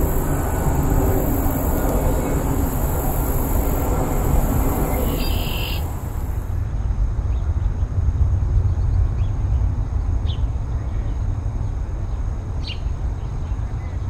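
Steady low outdoor rumble, like wind on the microphone or distant traffic, with a few short high bird chirps over it in the second half. A steady high hiss stops suddenly about six seconds in.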